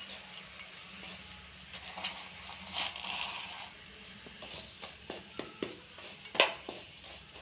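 Scattered clicks and knocks of jaggery and a spoon against a kadai as the jaggery is put in to melt, with one sharper knock about six seconds in, over a faint steady hum.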